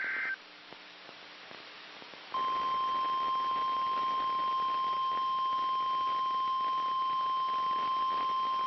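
NOAA Weather Radio 1050 Hz warning alarm tone: one steady, loud single-pitch tone that starts about two seconds in and holds, signalling that a warning message follows. A brief high-pitched electronic burst cuts off in the first half second.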